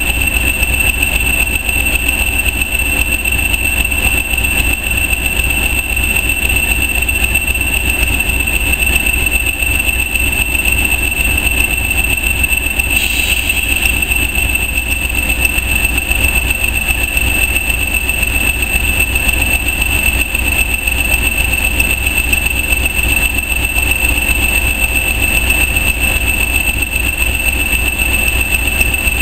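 Heritage railway passenger coaches rolling slowly past, a steady low rumble with a constant high-pitched tone over it.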